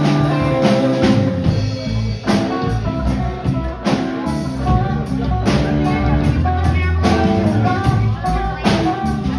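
Live band playing: electric guitars over a drum kit, a steady groove with held guitar notes.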